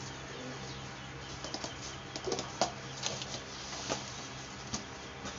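Scissors cutting cardboard, with the cardboard sheet rustling and flapping as it is handled: irregular snips and crackles, a few a second in clusters. A steady low hum runs underneath.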